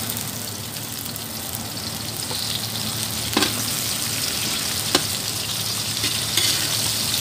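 Tomato wedges, onion and garlic sizzling in hot oil in a metal wok as they are stirred, with a few sharp knocks of the spatula against the pan.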